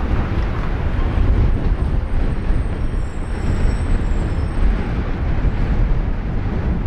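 Steady city street noise: a continuous low rumble with no distinct events standing out.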